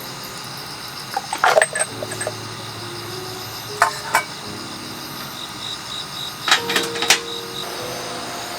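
Crickets chirping steadily, broken by a few sharp clicks or knocks: a cluster about a second and a half in, two around four seconds, and two around seven seconds.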